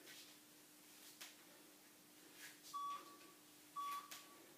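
Workout interval timer beeping a countdown: two short, mid-pitched beeps a second apart near the end, marking the last seconds of the exercise interval. Under them a faint steady hum.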